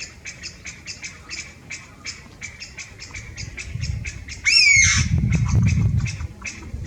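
Chinese bamboo partridge calling: a steady run of short 'pyu, pyu' chirps, then about four and a half seconds in one loud, drawn-out, arching 'pyaa' call, a call other than its well-known 'chotto-koi' song. A low rumble runs underneath in the second half.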